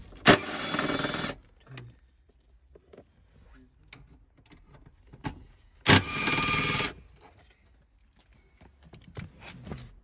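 A cordless power tool runs twice, each time for about a second with a sharp start, backing out the 10 mm bolts that hold the hybrid battery's cooling fan. Faint clicks and tool handling come between the two runs.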